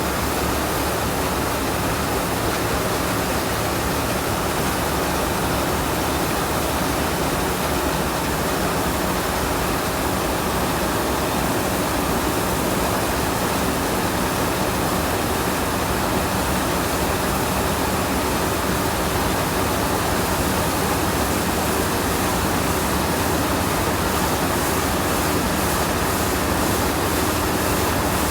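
Rice combine harvester running steadily: a loud, even rushing noise with a low engine hum beneath it that does not change.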